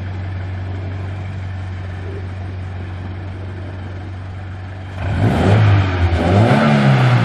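Scion FR-S flat-four engine and exhaust idling steadily, then revving up about five seconds in, its pitch rising and falling as it pulls away.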